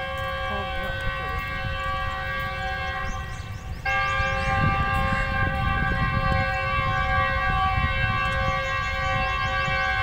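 Approaching diesel locomotive's air horn held in a long steady blast of several tones together, louder from about four seconds in, over a low rumble.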